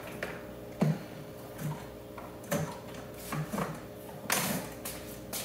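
Vinyl window blind being taken down from its mounting brackets: a series of irregular light clicks and knocks as the headrail and slats are worked loose.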